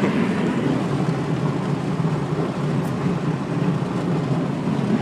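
Steady engine and road noise inside a car's cabin at highway cruising speed, holding an even level with no revving.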